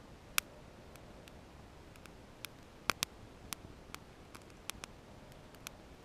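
Freshly caught kindling fire of thin split wooden splints crackling: about a dozen sharp, irregular snaps and pops over a faint hiss. The loudest comes about half a second in, with a close pair near the middle.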